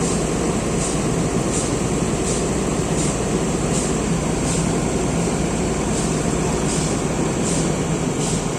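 JCB backhoe loader diesel engine running steadily, with a faint high hiss that pulses about every three quarters of a second.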